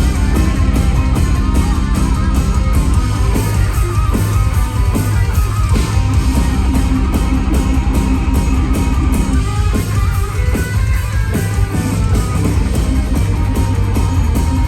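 Melodic death metal band playing live: distorted electric guitars over fast, dense drumming, in a stretch without vocals.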